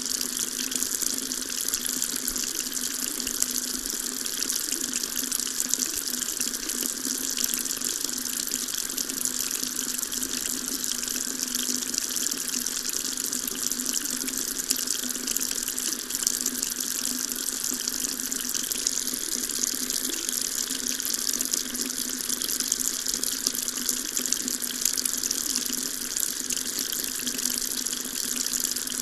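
Water tap running steadily, a constant splashing rush of water into a sink.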